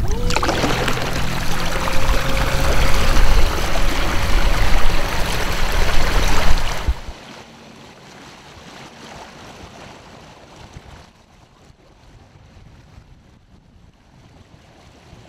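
Kayak under way: water rushing along the hull and wind on the microphone with a deep rumble, over a faint steady whine from the Torqeedo Ultralight 1103 electric outboard. About seven seconds in, the sound drops suddenly to a much quieter wash of water.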